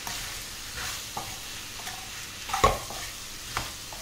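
A spoon stirring and scraping round gourd pieces in a kadhai, with ghee sizzling underneath. There are several short scrapes and knocks of the spoon against the pan, the loudest about two-thirds of the way through.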